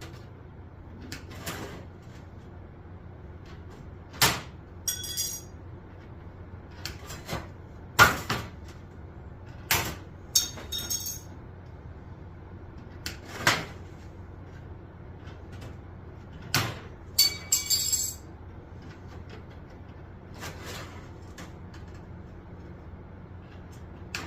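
Sheet-metal pieces handled on a workbench: scattered knocks and clanks as the pieces are moved and set down, with a few short scraping sounds, over a steady low hum.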